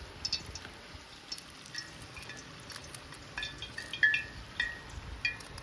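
Light metallic clinks: about ten short ringing pings at irregular intervals, coming more often and louder over the last two seconds.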